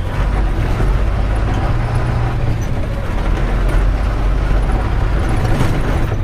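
Tata 3118 12-wheeler truck's diesel engine running steadily under way, with road noise, heard from inside the cab.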